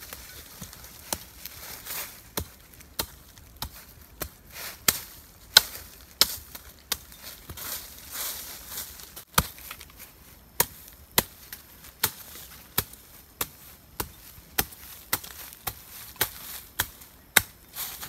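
Repeated sharp chopping strikes at a steady pace, roughly one every half second to second, with dry leaf litter rustling between them.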